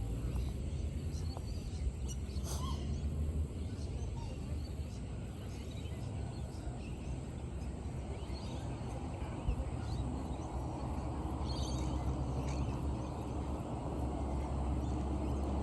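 Outdoor ambience: a steady low rumble and hiss, with a few short bird chirps about two seconds in and again near the end.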